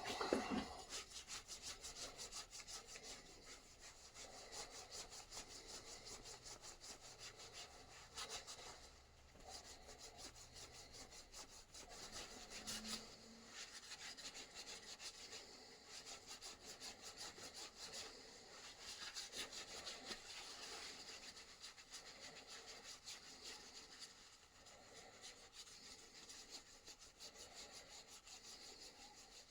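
A hand tool working wood in rapid, continuous scraping strokes.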